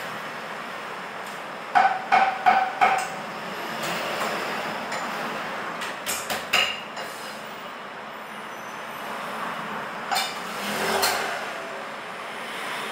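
Cleaver chopping on a cutting block: a quick run of about five sharp chops a couple of seconds in, a few more around the middle, and single chops later, over steady background noise.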